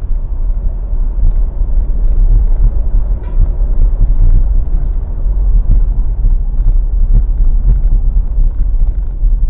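Low, steady rumble of a car's engine and tyre noise heard from inside the cabin while driving.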